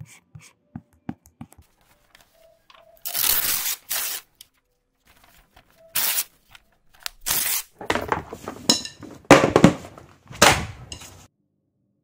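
A few faint clicks, then a run of about eight loud, harsh tearing and crunching noises, each under a second, coming closer together towards the end and stopping shortly before the end.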